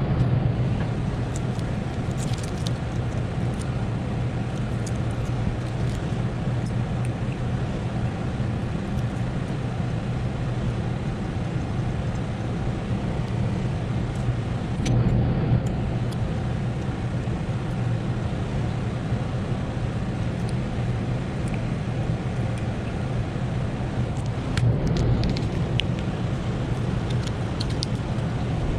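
A steady low mechanical hum, with a few light clicks and clatters about 2, 15 and 25 seconds in.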